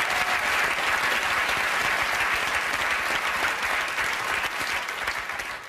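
Studio audience applauding, the clapping dying away near the end.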